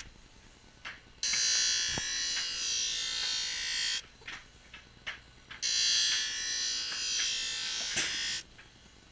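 Ice hockey skate blade ground on a skate-sharpening wheel: two passes of a steady high grinding hiss, each about three seconds long, with a quieter gap in between as the blade comes off the wheel.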